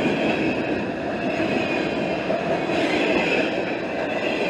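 Freight train cars rolling past on the rails: a steady rumble of steel wheels on track, with a thin high squeal riding over it.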